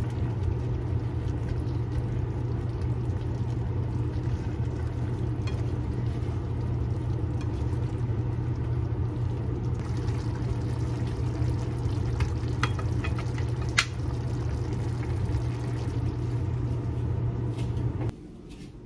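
Steady low hum with a faint hissing haze above it, cutting off suddenly near the end; a few light clicks come a few seconds before it stops.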